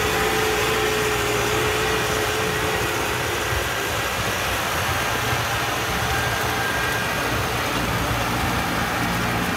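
Tractor engine running steadily with a New Holland square baler working behind it.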